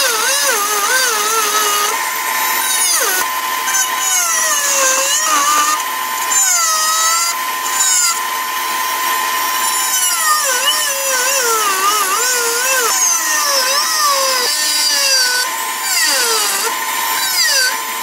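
Dremel Multi-Max MM35 oscillating multi-tool cutting into a clamped wooden board. Its motor whines steadily, and the pitch wavers up and down as the blade bites into the wood and eases off.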